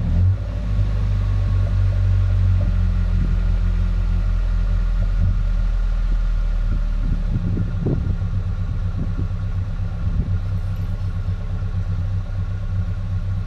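Exhaust note at the tailpipe of a Ford Ranger's 2.3-litre four-cylinder engine, idling steadily through a new Dynomax cat-back system with a deep, burbling tone.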